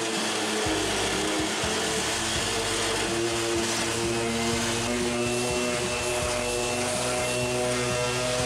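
Bosch random orbital sander running steadily, sanding a stainless steel surface.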